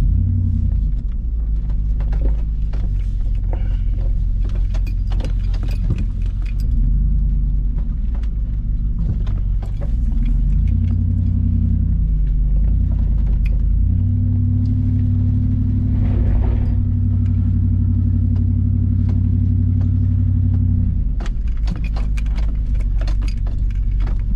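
2006 Nissan Armada's 5.6-litre V8 running at low revs as the SUV drives slowly over a rough dirt trail, heard from inside the cabin, with loose items rattling and clicking as it bumps along. The engine note holds steady for several seconds past the middle, and the rattles and knocks come thickest at the start and near the end.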